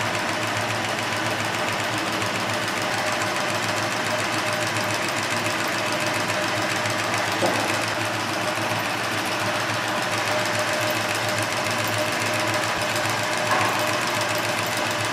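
Axis 121 cording embroidery machine, a Cornely 121-type lockstitch machine, running steadily while stitching cord onto fabric, a continuous mechanical whirr with a steady hum and one brief click about halfway through.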